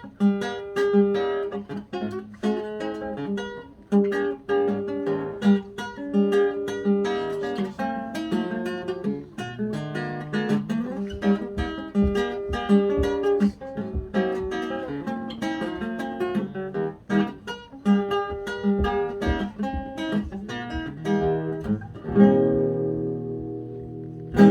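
Acoustic guitar playing an instrumental passage of picked notes and chords, ending on a louder strummed chord that rings out and fades near the end.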